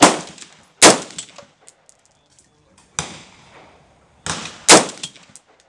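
AR-15 rifle firing single shots at an uneven pace: five reports over about five seconds, the fourth weaker than the rest, each trailing off in a short echo. The rounds come from a magazine kept fully loaded for 11 years, so the shots show it still feeding.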